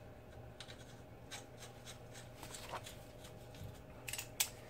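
Quiet handling noise: faint rustles and light clicks as hand tools are picked up and moved around, with a few sharper metallic clicks near the end.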